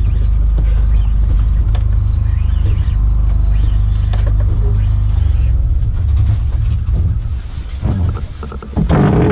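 Fishing boat's engine running with a steady low drone. It eases off near the end, and a short loud rush of noise comes just before the end.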